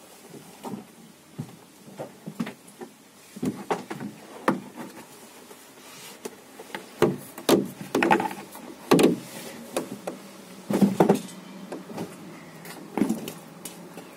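Irregular knocks, taps and scrapes from handling a diesel air heater's wired control panel as it is moved and set in place, loudest between about 7 and 11 seconds in.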